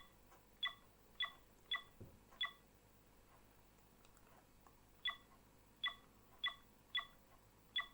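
Camcorder button beeps as its menu buttons are pressed: five short, sharp electronic beeps about half a second apart, a pause of a couple of seconds, then five more.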